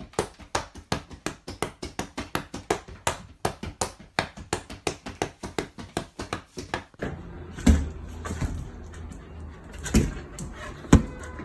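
Rapid, regular sharp smacks, about five a second, as a cockatoo scuffles with a person's hand. About seven seconds in they stop, and a few dull thumps follow as a dog knocks a balloon about.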